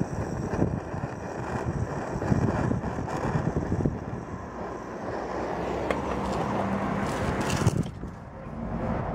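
Hand-held propane/butane torch burning with a steady rushing flame while heating a screwdriver tip to melt bumper plastic. The flame sound stops a little before the end.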